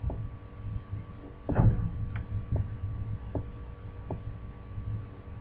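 Steady low electrical hum with a handful of faint computer mouse clicks, and one louder soft thump about a second and a half in.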